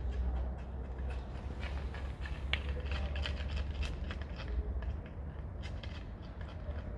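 Cats eating, a rapid irregular run of small crunching clicks, over a steady low rumble.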